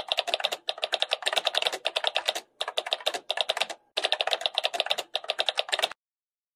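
Rapid keyboard typing sound effect: fast clicks in about four runs with brief pauses, stopping about six seconds in. It accompanies on-screen text being typed out.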